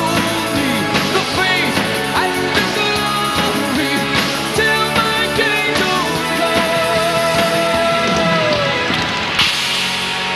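Live rock band playing: drum kit, electric guitars and a man singing. A long held note with vibrato runs from about six seconds in to near nine seconds, and a cymbal crash comes near the end.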